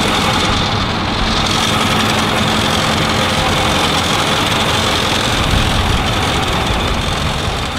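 Ford ambulance engine idling steadily, with a faint steady high whine over the engine noise.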